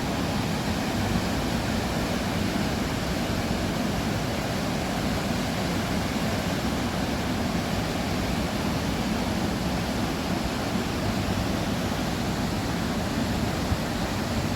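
Steady, even rushing noise with no pauses or distinct events.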